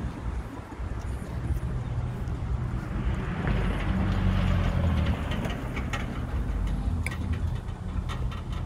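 Road traffic: a motor vehicle passing, its low engine rumble and tyre noise swelling louder about three to five seconds in.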